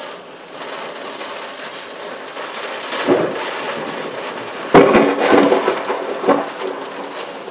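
Heavy rain and strong gusting wind of a severe storm, a dense rushing noise that swells in loud surges about three seconds in and again from about five seconds in.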